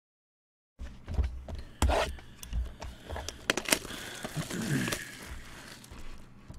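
Hands handling trading cards and their packaging: crinkling and scraping with several sharp clicks and knocks. The sound is cut off completely for about the first second.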